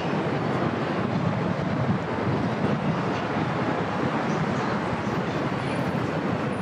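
Steady city noise of vehicles and rail traffic, an even rumble and hiss with no single event standing out.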